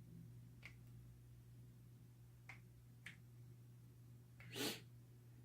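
Near silence with a few faint clicks of a small plastic toy figure being handled and fitted into its piece, and one short breath-like rush about four and a half seconds in.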